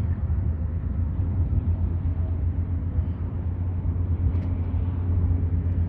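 Steady low engine rumble, running evenly with no change in pitch.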